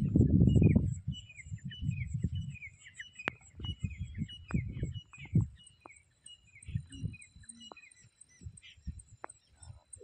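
Many small birds chirping in short, repeated falling notes, over a steady high insect buzz. In the first second a loud low rumble of wind on the microphone covers them.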